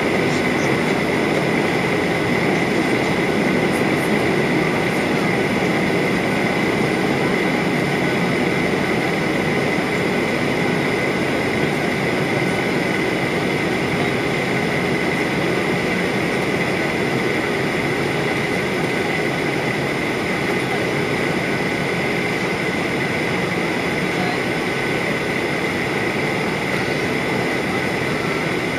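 Steady cabin noise inside a Ryanair Boeing 737-800 in flight: the even roar of rushing air and its CFM56 jet engines, with a steady high tone running through it.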